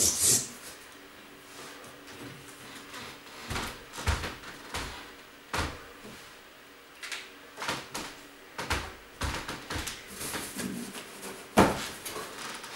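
Objects and boxes being handled and set down: scattered short knocks, clicks and scrapes, with the sharpest knock near the end.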